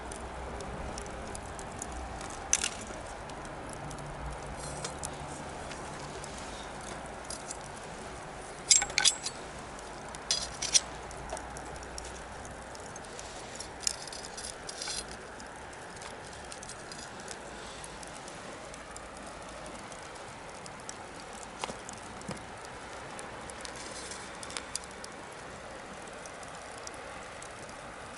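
Wood bonfire crackling, with sharp irregular pops and snaps over a steady hiss, including a quick cluster of loud pops about nine seconds in and again around ten to eleven seconds. A faint low rumble sits underneath for the first twelve seconds or so, then fades.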